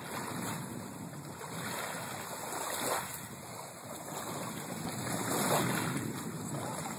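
Small waves lapping and washing on a pebble shoreline, a steady splashing hiss that swells and eases every couple of seconds.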